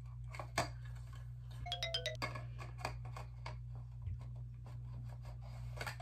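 Plastic clicking and scraping of a hair dryer's diffuser attachment being handled and twisted onto the dryer. About two seconds in, a short two-note electronic chime sounds, stepping down in pitch.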